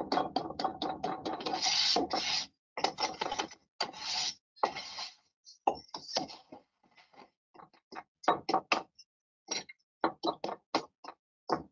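Hand trowel scraping and smoothing a bed of ARDEX A 38 rapid-set premixed screed mortar, in a series of short, irregular scraping strokes.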